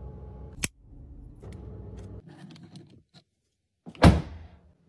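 A steady low car-cabin hum with light plastic clicks, which cuts off a little past two seconds, then a few light clicks. About four seconds in comes a single loud clunk of a car door handle and latch being pulled.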